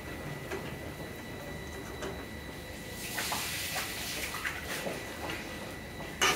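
Pork pieces frying in oil in a wok: a sizzle that grows louder and thicker about halfway through as the pieces are stirred and lifted out with a metal spatula, with light scraping clicks and one sharp clink of the spatula near the end.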